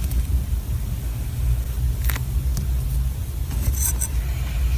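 Stainless steel scoop cutting and scraping through kinetic sand: soft scrapes with a brief crackle about two seconds in and a few more near the end, over a steady low rumble.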